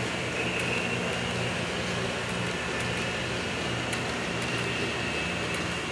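HO scale model train running on the layout track: a steady hum and rumble from its motor and wheels, with a few faint clicks.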